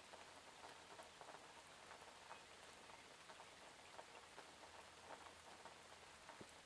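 Faint steady rain: an even hiss of rainfall with many small, scattered drop ticks.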